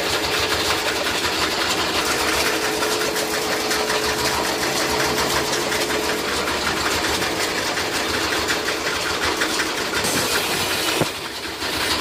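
Generator-driven fodder chaff cutter running steadily, a rapid rhythmic machine clatter with a steady hum. It dips briefly near the end.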